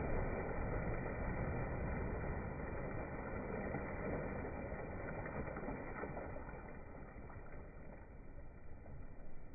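Pond water churning and sloshing where a person has just jumped in, dying down gradually.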